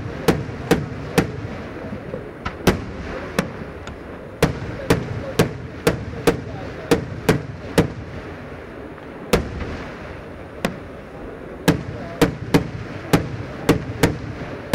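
Daytime aerial firework shells bursting in quick succession, sharp bangs about two a second with a couple of short pauses in the sequence.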